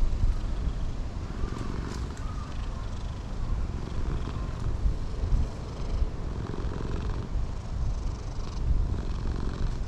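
A cat purring close to the microphone, a continuous low, fluttering rumble.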